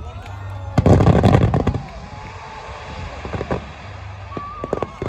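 Aerial fireworks: a loud salvo of booms and dense crackling about a second in, then scattered sharp bangs over a lingering rumble.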